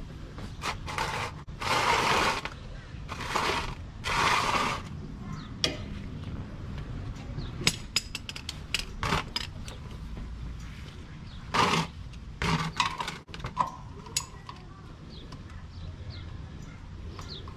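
A plastic oil drain pan scraped across a concrete floor in three pushes, then scattered metal clinks and knocks of a socket, extension and ratchet being handled and fitted onto the engine's oil drain plug.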